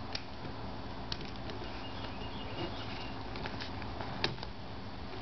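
Light handling noise as a rubber-lined jar opener is pressed onto a childproof plastic pill bottle cap and twisted open: a few faint clicks and rustles over a steady low hum.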